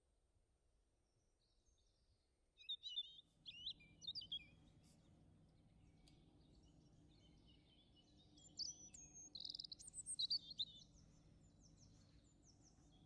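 Small birds chirping in two short spells of quick, high chirps, over a faint steady low hum that comes in about three seconds in.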